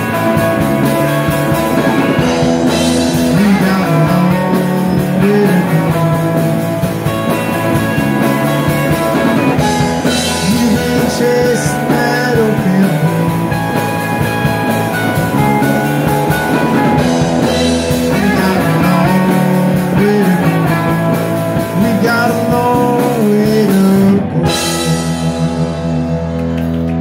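Live rock band playing: two electric guitars, electric bass and drum kit. Near the end the drums drop out and the band holds a final chord that rings on.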